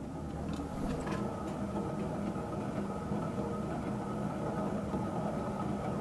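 Moss Caribbean Breeze industrial ceiling fan running steadily on a solid-state speed control, its rough, worn bearings making the main noise with very little motor hum. A couple of faint clicks about a second in.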